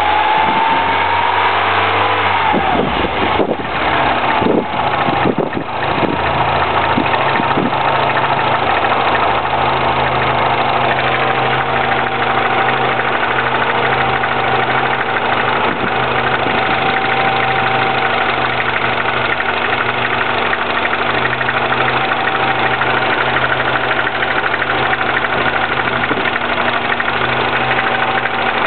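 2009 Mini Cooper S's turbocharged 1.6-litre four-cylinder running after a cold start. It is unsettled for a few seconds near the start, then settles to a steady idle. Any rattle from it is what the owner suspects may be the timing chain.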